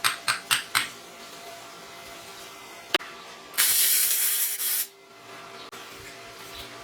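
Four quick clicks, a single click about three seconds later, then a hiss lasting about a second and a half that stops sharply.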